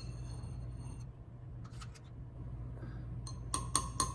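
A spoon clinking against a clear glass while pudding is spread in it: a couple of faint scrapes midway, then a quick run of about four short ringing taps near the end.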